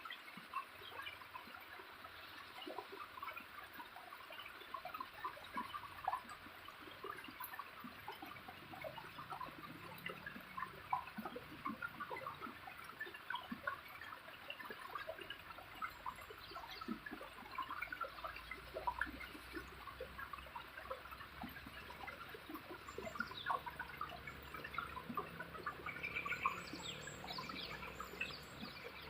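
Water of a small waterfall splashing and trickling steadily, dense with little droplet splashes. A bird calls briefly near the end.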